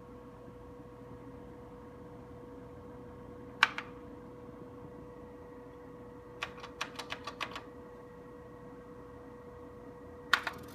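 Keys of a 1973 Tektronix 31 programmable desktop calculator being pressed, clicking over the machine's steady hum: a loud click about a third of the way in, a quick run of about six clicks a little past halfway, and a double click near the end.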